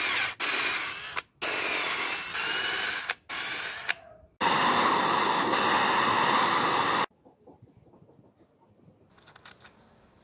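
Electric drill boring into a PVC plate in four bursts, its pitch sliding as the trigger is eased. About four and a half seconds in, a handheld butane torch burns with a steady loud hiss while heating a steel bolt, and it cuts off sharply about three seconds later. Faint clicks follow as the bolt is set into the plastic.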